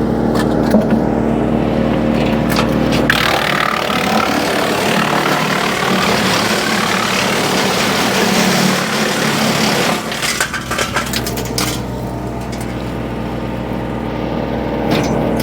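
Tractor-driven Woodmaxx WM8H PTO wood chipper running with a steady hum. From about three seconds in until about eleven seconds, a dense grinding noise covers it as brush is fed through and chipped, and then the steady hum returns.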